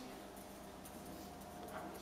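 Faint scratching and ticking of rainbow lorikeets' claws as they walk on a kitchen countertop, over a low steady hum.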